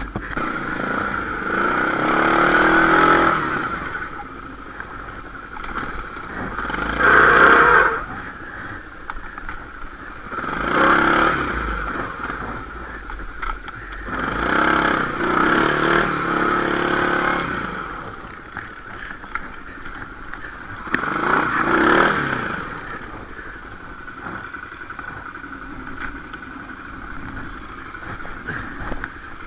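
Quad bike (ATV) engine running, with about five surges of throttle, each lasting one to three seconds, between stretches of steadier running.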